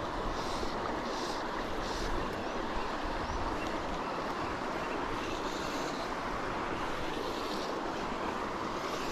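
Steady rushing of river water flowing through a pool.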